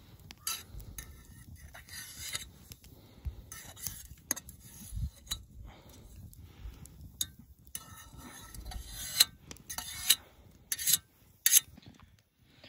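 A metal camp fork scraping and clinking against a metal camp pot while wet pine needles are lifted out of the steeped tea. The strokes are short and irregular, with a few sharper clicks in the second half.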